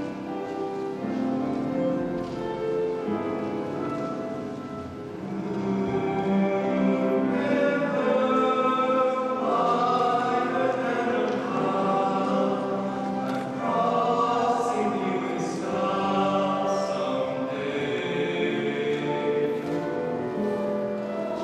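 A small vocal jazz ensemble of mixed voices singing in close harmony with sustained chords. The singing is softer for the first few seconds, then grows fuller and louder from about five seconds in.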